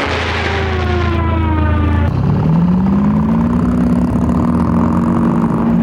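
A diving Ju 87 Stuka's engine whine, falling steadily in pitch over a dense rushing noise. About two seconds in it gives way to heavy tank engines running, rising in pitch and then holding steady.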